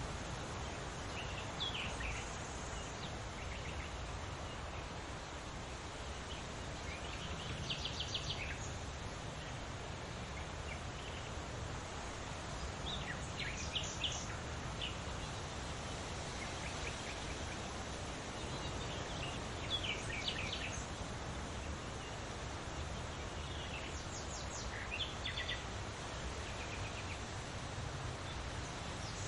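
Several songbirds calling and singing in short bursts of chirps and trills, several seconds apart, over a steady rush of wind and leaves.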